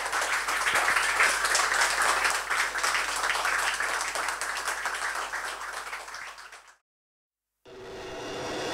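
Audience applauding, the clapping fading away and cutting off about seven seconds in. Music fades in faintly near the end.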